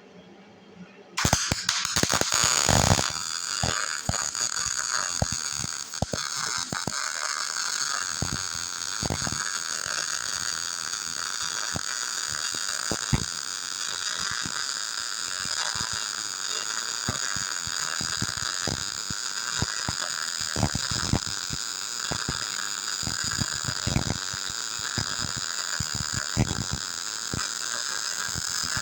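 Arc welding on a steel backhoe bucket: a steady crackling hiss that starts abruptly about a second in, with sharp pops scattered throughout as gaps are welded closed.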